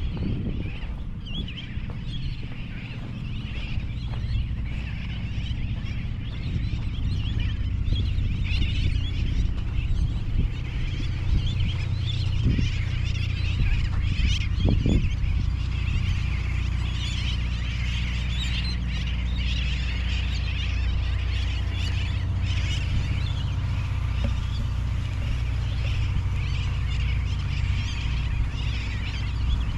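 Many seabirds calling at once, a dense, continuous chattering of overlapping cries, over a steady low rumble.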